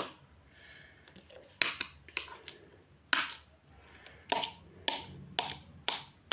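Homemade slime slapped and pressed against a hard floor to test whether it sticks: about seven sharp, irregularly spaced slaps, starting about a second and a half in.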